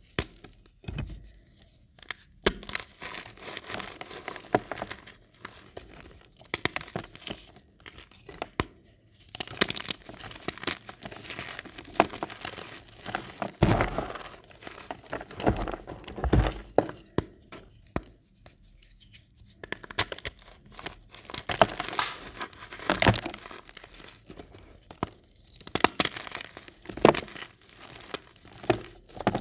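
Hands squeezing and crushing crumbly reformed gym chalk, a dry crunching and crackling as the pressed chalk breaks into pieces and powder. The crunches come irregularly, with a few short pauses between handfuls.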